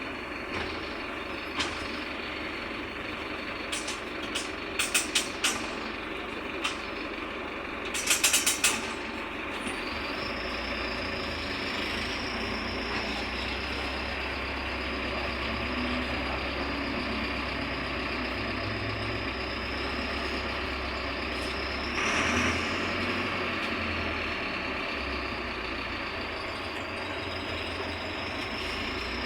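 Mercedes-Benz OF-1721 bus's diesel engine running on the road, with several brief sharp noises in the first nine seconds. From about ten seconds in the engine pulls harder, its low drone strengthening under a steady high whine.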